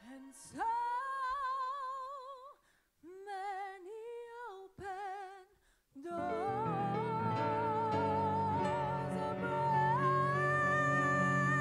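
Gospel song: a single high voice sings short phrases with wide vibrato and brief pauses between them. About six seconds in, instruments with a low bass line come in under a long held sung note.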